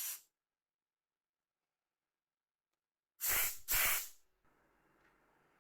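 Short puffs of blown air, two in quick succession about three seconds in, blowing dust off a phone part during cleaning.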